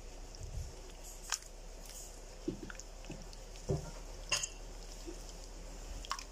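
Hands kneading and squeezing sticky white glue slime activated with liquid starch: scattered wet squelches and soft thuds, with a couple of sharp clicks.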